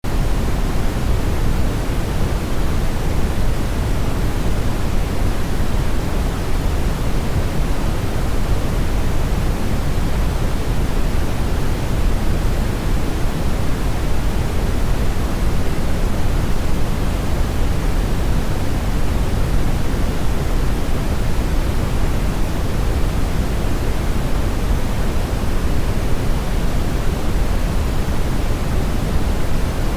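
Steady, even rushing noise, heavier in the low end, that does not change and has no other sounds in it.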